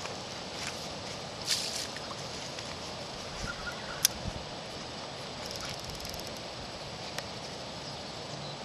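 Steady outdoor hiss of wind and rippling water at a lake's edge, broken by a short rustle about a second and a half in and a few sharp clicks, about 4 s in and again near the end, from a fishing rod and spinning reel being handled.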